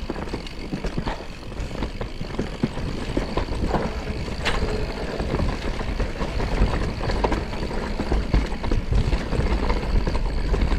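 Forbidden Dreadnought mountain bike rolling down a dirt singletrack: a steady low rumble of tyres on the trail, with scattered small knocks and rattles from the bike over the bumps.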